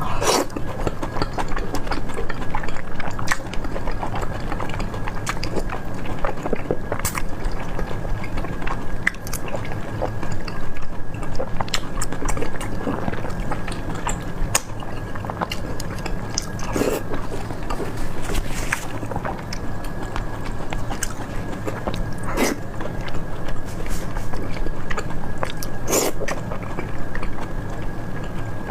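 Chewing and biting: scattered sharp crunchy clicks over a steady low hum and a thin high steady tone.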